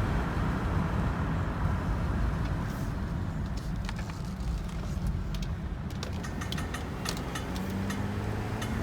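High-mileage Volvo XC90 under way: a steady low road and drivetrain rumble with sharp clicks that begin about three seconds in and come faster toward the end. The clicking comes under acceleration and fades when coasting or idling, which the owner takes for a failed CV joint on the driveshaft.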